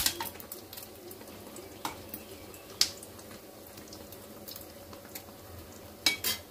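Egg-battered kebab shallow-frying in hot mustard oil: a soft, steady sizzle with scattered crackles. A few sharp clicks of a metal slotted spoon against the pan as the kebab is turned, the loudest about three seconds in.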